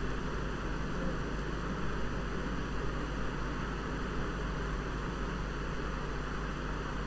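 Steady background hiss of room tone and microphone noise, with a faint low hum underneath.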